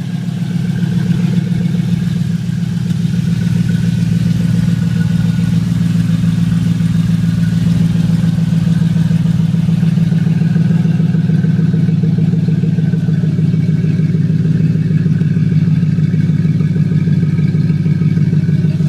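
A 2005 Chevy Avalanche's V8 idles steadily and loudly through dual Cherry Bomb Extreme mufflers with the exhaust dumped before the rear. The engine is warm, not a cold start.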